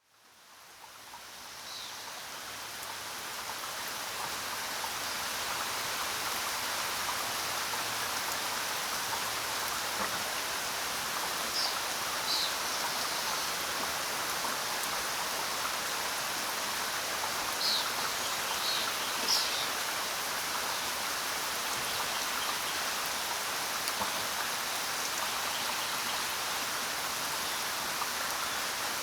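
Steady rainfall hiss, fading in from silence over the first few seconds and then holding even. A few brief, high-pitched chirps sound over it in the second half.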